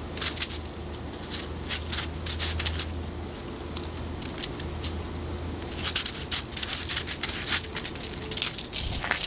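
Footsteps crunching on frozen, snow-crusted grass: quick crackly steps in short clusters, busiest in the second half.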